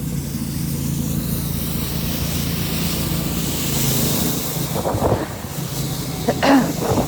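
Strong wind gusting across a phone microphone in a snowstorm, with a hiss that builds to a peak midway and then eases. Under it runs the steady low hum of a vehicle engine, and a few brief sounds come near the end.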